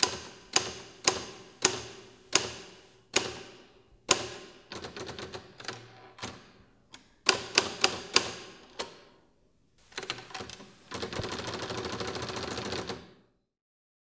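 Manual typewriter being typed on slowly, single key strikes clacking one or two a second at uneven intervals. Near the end comes a continuous rasping rattle of about two seconds that stops suddenly.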